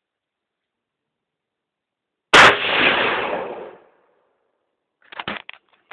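A single rifle shot from a scoped rifle about two seconds in, its report fading away over about a second and a half. A few short clicks and clatter follow near the end.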